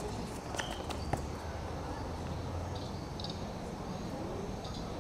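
Outdoor background noise: a steady low rumble, a few faint knocks in the first second or so, and short high chirping trills about three seconds in and again near the end.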